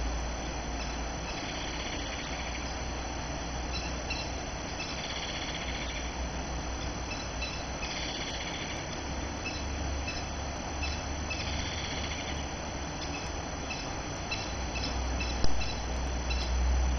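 Crested kingfisher calling: about four harsh, rattling calls, each about a second long and a few seconds apart. This is a male calling for his mate while holding a fish to feed her. A single knock sounds near the end, over a low outdoor rumble.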